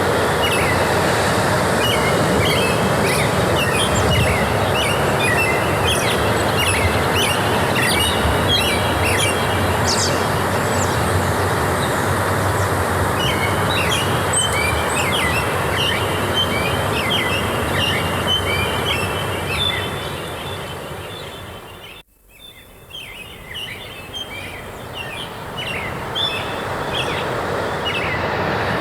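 Forest ambience: many small birds chirping and twittering over a steady rushing background. About two-thirds of the way through, everything fades almost to silence for a moment, then swells back, like a join in the recording.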